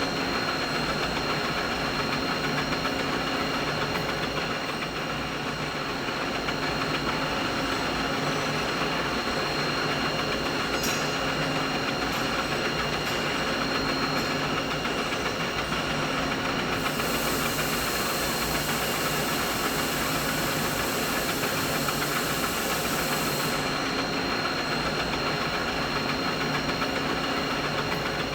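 Steady machinery noise: a dense, even mechanical drone with a few steady whining tones running through it. A higher hiss joins for several seconds past the middle.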